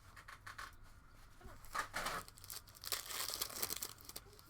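A trading-card pack wrapper being torn open and crinkled by hand, in two noisy stretches with small clicks between them.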